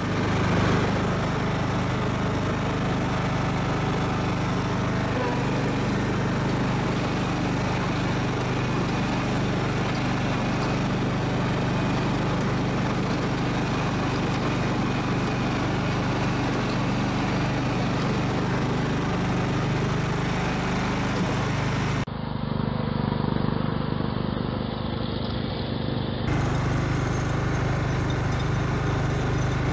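16 hp Kohler engine of a Simplicity riding mower running steadily while the mower is driven. For a few seconds about three-quarters of the way through, the sound turns duller.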